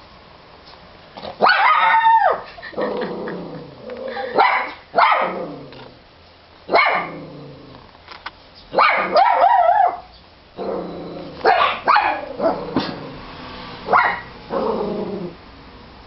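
A dog barking repeatedly in short bouts, about a dozen barks and yips, some of them drawn out and falling in pitch.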